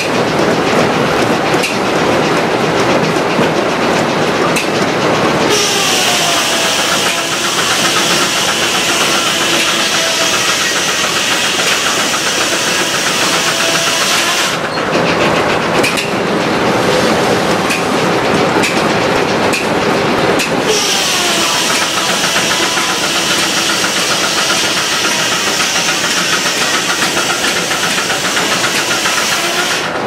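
Belt-driven circular sawmill at work. The blade cuts through the log twice, starting about 5 s in and again about 21 s in, each cut a high hiss lasting about nine seconds, and the blade's whine drops in pitch as it bites into the wood. Between the cuts there is a steady mechanical rattle of the mill and its carriage.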